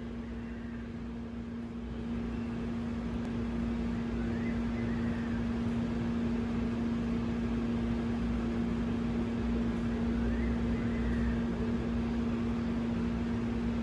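Steady machine hum: a constant low drone with a rumble beneath it. Three times, a faint whistle rises and falls over it.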